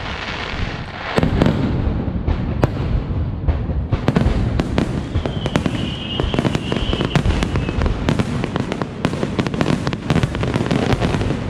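Aerial fireworks barrage: shells launching and bursting in quick succession, a string of sharp bangs and crackles that turns denser and faster about four seconds in.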